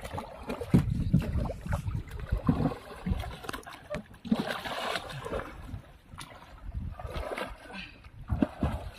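Shallow water splashing and sloshing against a small wooden boat as a man plunges his arms into the water beside the hull, with irregular knocks and thumps and a bigger splash about halfway through.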